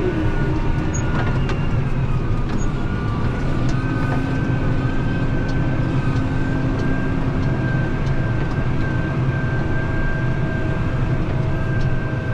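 Heavy farm harvest machinery running steadily under load, a dense low engine drone with steady whines that come in partway through.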